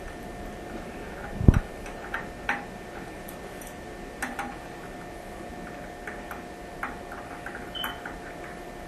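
Small adjustable wrench ticking and tapping against the bolt and nut while snugging down the bolt on a toilet tank, in scattered light clicks with one louder knock about a second and a half in, over a faint steady hum.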